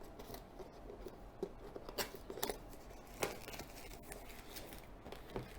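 Faint, scattered clicks and light scrapes of a cardboard headphone box being handled and turned over.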